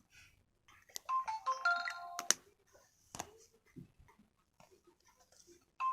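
A short electronic ringtone-style melody of a few held notes plays for about a second and a half, followed by a couple of sharp clicks; the melody begins again at the very end.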